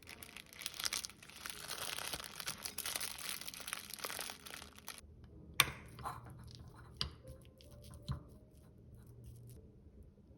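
Dense rustling and crinkling, as of something crumpled or torn, for about five seconds, then a few sharp clicks and knocks.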